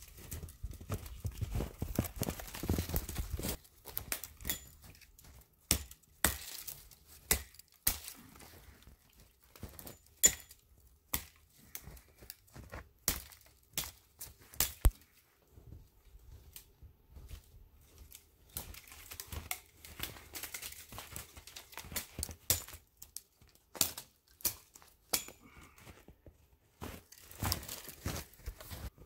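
Dry dead spruce twigs and branches snapping and cracking as they are broken off for firewood, many sharp separate snaps, with the rustle of a bundle of brushy branches being handled in the first few seconds.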